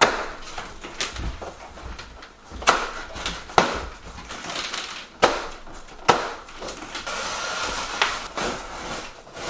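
Cardboard appliance box being unpacked: about seven sharp snaps and knocks as the plastic packing straps come off and the box is handled, with a stretch of scraping rustle late on.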